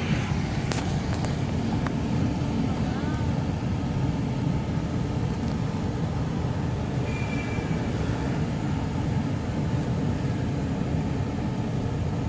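Steady road and engine noise of a car being driven, heard from inside its cabin: an even low rumble with no change in pace.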